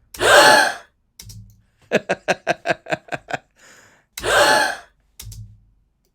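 Layered women's gasp sound effect: several female voices gasping in surprise together, a short breathy rising-and-falling 'oh', played twice with a small-room reverb added. Between the two gasps comes a quick run of about ten short pitched pulses.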